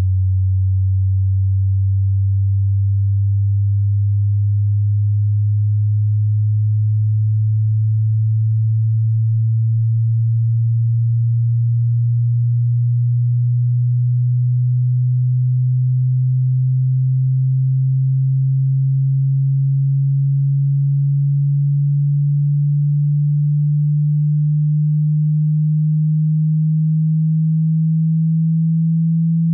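A pure sine test tone, deep and steady, gliding slowly upward in pitch from about 94 Hz to about 160 Hz: a frequency sweep from a hearing test.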